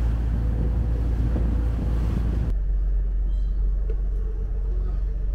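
Sightseeing cruise boat's engine running with a steady low rumble, wind noise on the microphone over it. About halfway through the hiss above the rumble drops away abruptly, leaving a duller rumble.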